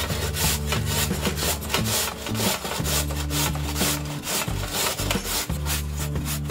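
A peeled raw potato rubbed back and forth on a flat stainless-steel grater: a rasping scrape about three strokes a second.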